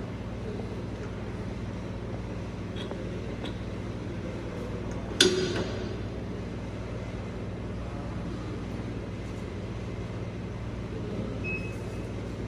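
Cable-rewinding machine running with a steady low motor hum. A single sharp clank with a short ring comes about five seconds in.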